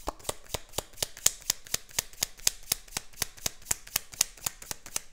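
A deck of tarot cards being shuffled by hand: a steady run of quick, even card clicks, about eight a second.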